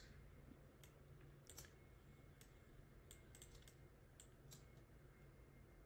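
Near silence with faint, irregular clicks from a computer keyboard and mouse, about a dozen spread unevenly.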